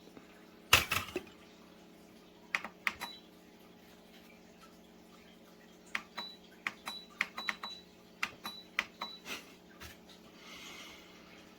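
Hard kitchenware being handled: one sharp knock, then a run of irregular light clicks and clinks, some with a brief high ring.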